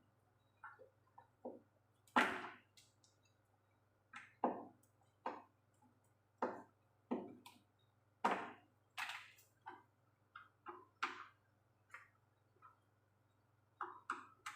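Irregular short knocks and clicks of hand work on a washing machine, as the parts taken off are fastened back in place; the loudest knock comes about two seconds in.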